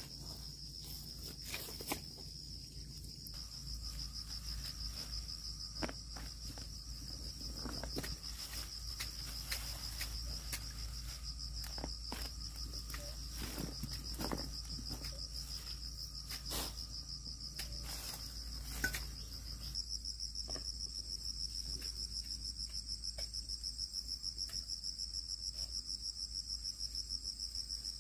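A steady high-pitched insect trill that grows louder and pulses rapidly in the last third, with scattered rustles and snaps as peanut plants are pulled up from the soil.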